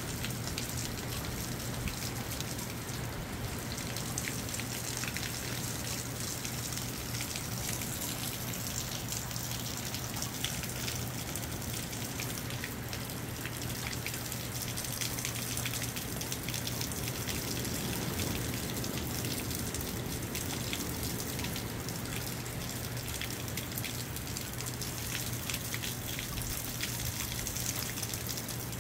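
Moderate rain falling steadily in a storm, a dense patter of drops hitting and dripping on surfaces, with a steady low hum underneath.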